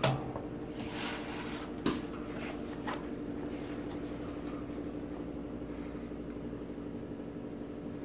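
A sharp click as the box furnace's power switch is flipped on, followed by a smaller click a little under two seconds later, over a steady electrical hum.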